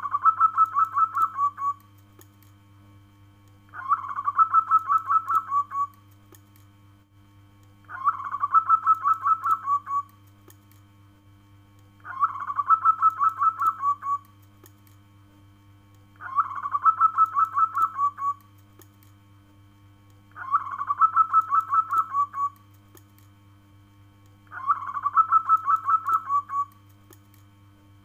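Zebra dove (perkutut) cooing its rolling call: each call is a quick run of pulsing coo notes lasting about two seconds, repeated about every four seconds, seven times.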